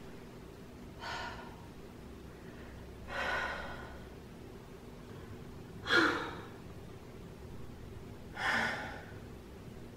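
Four women's sighs, one after another, each a breathy exhale lasting about half a second to a second. The third and fourth are the loudest and carry a little voice that falls in pitch. They are theatrical sighs of languishing, love-sick longing.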